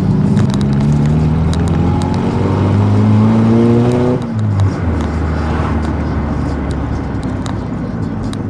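Volkswagen Gol's engine, rumbling loudly through an aftermarket JK exhaust, pulls away with its pitch climbing for about four seconds. Its pitch then drops sharply at a gear change and it runs on steadier and lower.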